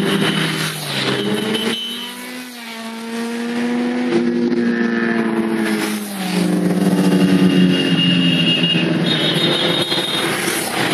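Several motorcycles ride past one after another, their engines rising and falling in pitch as each one approaches and passes.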